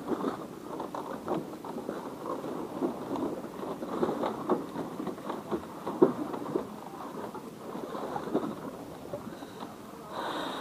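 Footsteps on a bamboo walkway, with the slats knocking and creaking irregularly underfoot and one sharper knock about six seconds in.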